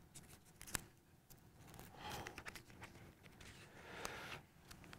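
Quiet room with a few faint clicks and soft rustling as paper pages are turned in a binder.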